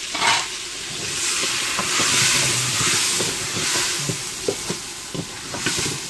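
Onion, tomato, herbs and spices frying in oil in an aluminium couscoussier pot with a steady sizzle. A wooden spoon stirs them, knocking lightly against the pot's sides.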